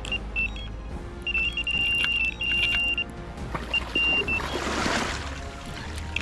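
Electronic carp bite alarm sounding a high, nearly continuous beep in long and short runs as a fish takes line: a run. About four and a half seconds in, a splash of water as the rod is grabbed from the pod.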